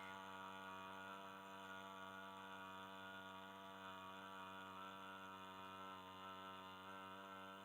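A low, steady drone of a chanted "aa" (आ) vowel, held without a break, with many even overtones.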